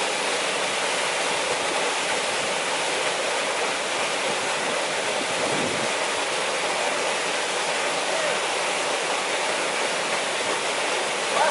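Fast-flowing river water rushing and churning over rapids, a steady, even rush.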